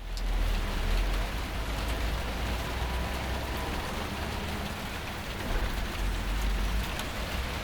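Steady rain falling on surfaces, an even hiss with a few sharp drip clicks. A low rumble runs underneath and swells about a second in and again around five seconds in.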